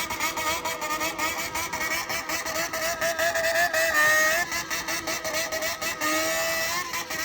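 Honda CBX400F's air-cooled inline-four with a Waltz Kikai exhaust revved at high rpm in a rhythmic 'call'. The throttle is worked so the engine note rises and falls in waves without dropping to idle, climbing highest about four seconds in and again near six seconds.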